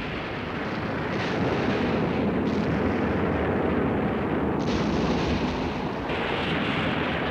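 Dense, continuous rumble of bombing explosions, with no separate single blasts standing out. Its tone shifts abruptly a few times.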